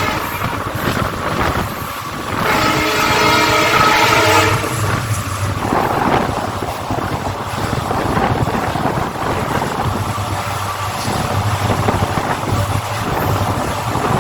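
WDG4 diesel locomotive's air horn: one blast fades out at the start, and a second blast of about two seconds sounds a couple of seconds in. After that, the passing train's heavy rolling rumble of wheels and coaches carries on.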